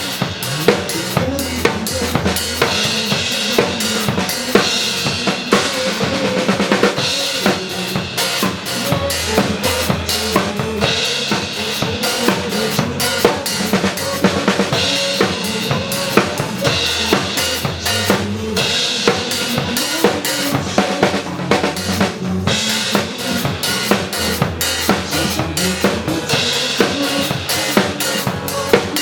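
Drum kit played in a steady, busy groove: bass drum, snare and rimshots, with cymbals. It plays over a pop backing track that has a bass line.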